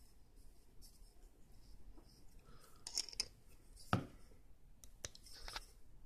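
Stanley 12-in-1 multi-tool's steel pliers jaws clicking and scraping on a screw in a wooden block as they try to grip it and slip. There are a few faint clicks and scrapes, the sharpest about four seconds in.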